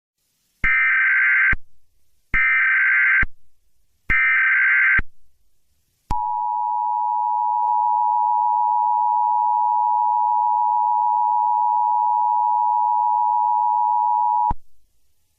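Emergency Alert System header: three short bursts of SAME data tones, each just under a second, then the two-tone EAS attention signal (853 and 960 Hz together) held steady for about eight seconds before cutting off, announcing that an emergency alert message follows.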